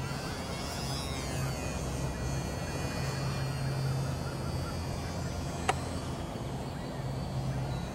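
Thin whine of a ParkZone UMX Polecat's small electric motor and propeller in flight, sliding up and down in pitch as it manoeuvres, with one sharp click about six seconds in.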